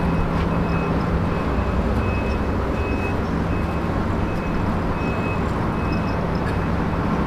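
Steady low rumbling noise with a faint hum, and short high-pitched tones repeating about once a second.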